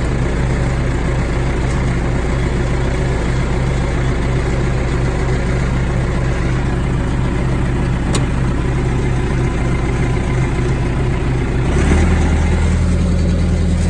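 John Deere 450E crawler dozer's diesel engine running steadily. About twelve seconds in, its note drops lower and gets a little louder, then holds.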